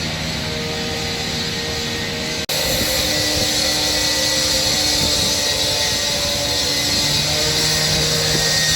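A steady mechanical-sounding drone with a few held low tones. About two and a half seconds in it cuts off abruptly and picks up again louder and hissier.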